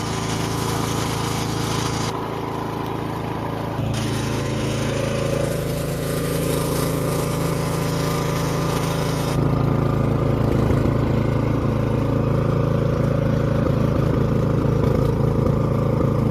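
Toro 1000 Snow Series snowblower's small petrol engine running steadily, with its note shifting and getting louder twice, about four and nine seconds in. It is running again after a carburetor cleaning, having not started for two to three years.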